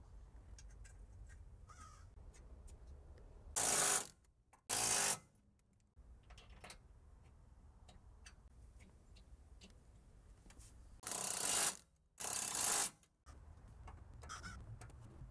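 Impact wrench running in four short bursts, each under a second long, in two pairs about seven seconds apart, as it drives home the front engine mount bracket bolts. Faint clicks and knocks of handling come in between.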